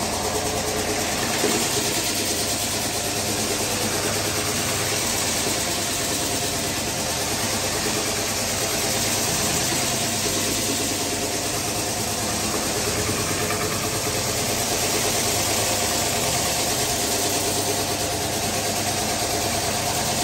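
Terrazzo (chips) floor grinding machine running steadily: a constant motor hum with several steady tones, under the noise of its abrasive stones grinding the stone floor down to clean and level it for polishing.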